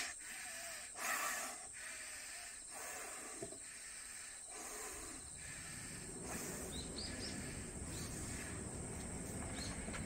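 A man blowing by mouth into the valve of an inflatable pillow on a self-inflating camping mattress: a series of breathy puffs, roughly one a second, over the first five seconds. After that comes a low steady rumble, with a few short bird chirps in the second half.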